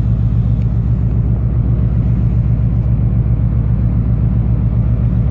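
Ship's engine rumble aboard a cargo vessel: a steady, loud low throb with a fast, even pulse.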